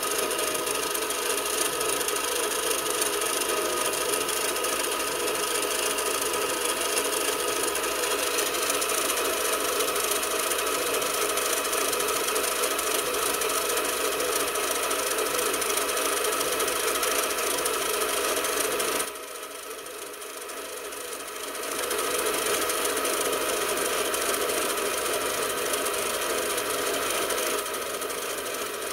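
Bench lathe running and turning a metal bar: a steady motor and gear whine mixed with the noise of the tool cutting. About two-thirds of the way through it drops much quieter for a couple of seconds, then picks back up.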